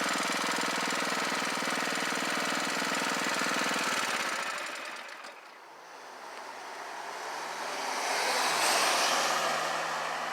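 Predator 212cc single-cylinder engine of an ATV running hard. It fades to a low point about halfway through, then grows louder again.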